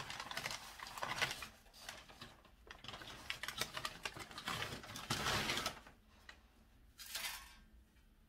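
Wrapping paper crinkling and rustling in irregular bursts as a package is unwrapped by hand, with a lull near the end and one last short rustle.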